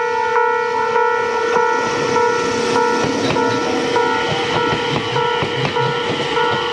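Japanese electronic level-crossing warning bell ringing in a steady repeating ding, a little under two strikes a second, while a train runs past.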